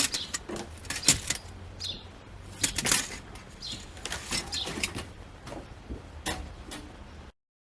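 Irregular clicks, knocks and short squeaks of hands working with car parts and trim, with no steady sound underneath. It cuts off suddenly near the end.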